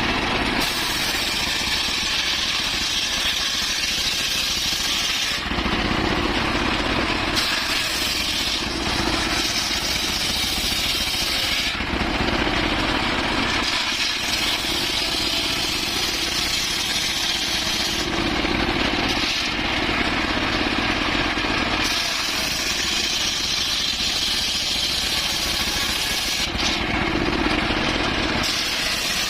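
Circular saw running continuously and cutting through wood in repeated passes. There are about five cuts of roughly four to five seconds each, with short gaps between them where the blade spins free.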